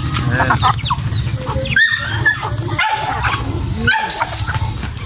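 Free-range native chickens clucking and calling as they crowd and peck at scattered feed, many short calls overlapping, over a steady low rumble.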